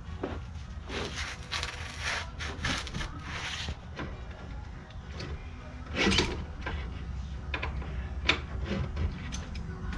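Hand tools working on a car's front brake assembly: scraping and rubbing strokes, then a louder metallic knock about six seconds in and a few lighter clicks.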